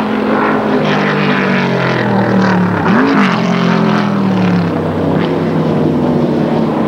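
Vintage sports racing car engines running at speed on a race circuit. The engine note slides down in pitch, with a brief rise and fall about three seconds in.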